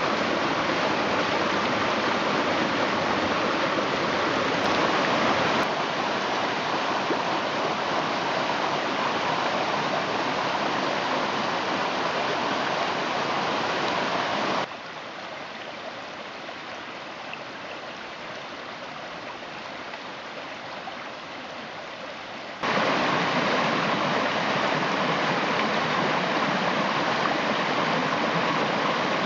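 Mountain creek in winter, water rushing steadily over rocks. About halfway through it cuts abruptly to a quieter, thinner stretch of flowing water for about eight seconds, then back to a fuller rush.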